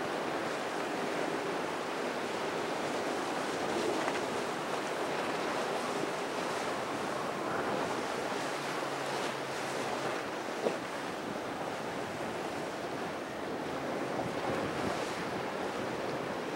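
Steady rush of choppy inlet water and breaking boat wakes, with wind buffeting the microphone. A faint low engine drone shows briefly around the middle, and there is a single sharp click about two-thirds of the way through.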